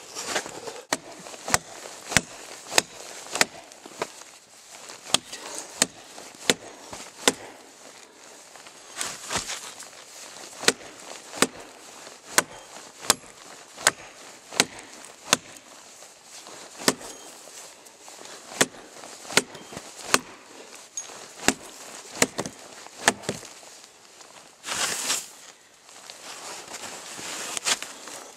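Cold Steel Norse Hawk tomahawk chopping into a dry dead log: a steady series of sharp blows, a little more than one a second, that stops a few seconds before the end and is followed by a short rustle.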